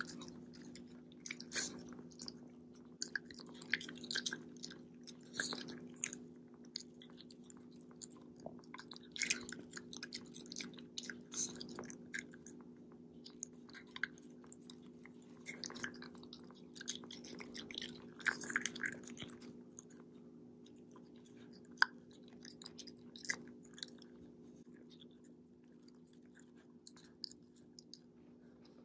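Shiba Inu chewing and crunching food slowly, in irregular bursts of small clicks and crunches that thin out in the last few seconds. A steady low hum runs underneath.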